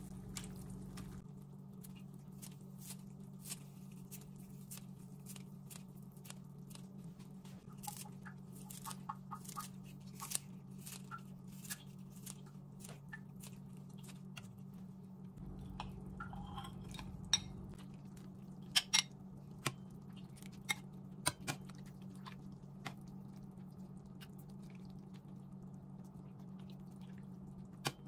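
Metal ladle stirring and scooping soup in a stainless-steel pan, with scattered clinks of metal on metal and the loudest run of sharp clinks in the middle. A steady low hum runs underneath.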